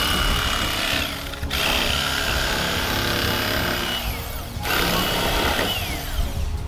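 Bubba Blade 110-volt corded electric fillet knife running as it cuts perch fillets. It runs in three stretches with short breaks between them, and its whine falls away each time it stops.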